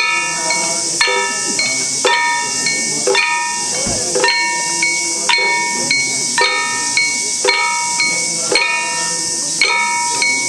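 Small hand-held bronze gongs struck in a steady beat, about once a second, each stroke ringing with a bright metallic tone that fades before the next, accompanying the Kūya nenbutsu dance.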